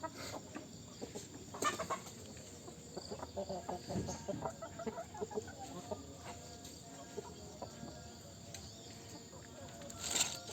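Several chickens clucking, many short calls overlapping, with a couple of brief sharp noises about two seconds in and near the end.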